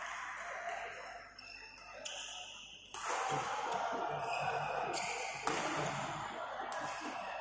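Echoing sports-hall ambience at a badminton tournament: a wide hubbub of distant voices and court noise that gets suddenly louder about three seconds in, with a couple of sharp knocks.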